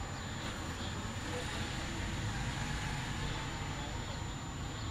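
Steady background noise with a low rumble and a thin, steady high-pitched whine, with no distinct events.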